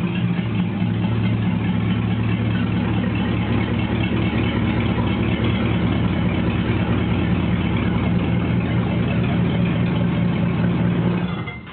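Ford flathead V8 engine idling steadily, then stopping abruptly near the end.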